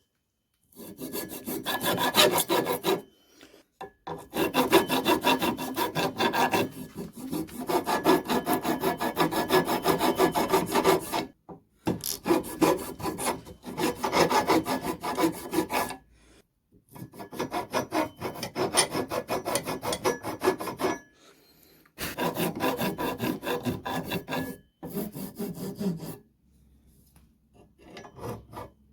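Hand tool scraping over a wooden ax handle: rapid strokes of metal on wood, in runs of several seconds broken by short pauses.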